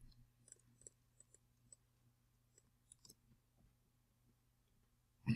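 Faint scattered clicks of a computer keyboard over a steady low hum, with one louder low thump near the end.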